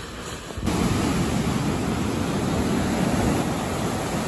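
Surf breaking and washing up the sand: a steady rush of waves that starts abruptly about half a second in, after a quieter stretch.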